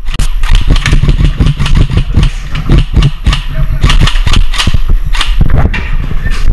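Quick, heavy footsteps and gear clattering close to the microphone, a dense run of irregular knocks over a steady low rumble.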